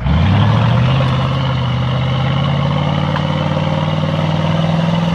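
Off-road vehicle's engine revving up sharply and held at high revs under load, its pitch creeping higher for about five seconds before easing off.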